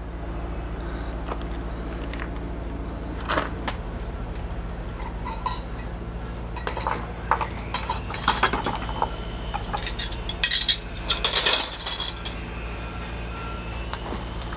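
Metal tools clinking and rattling as they are handled, scattered light clinks that come thickest in a run a little past the middle, over a steady low hum.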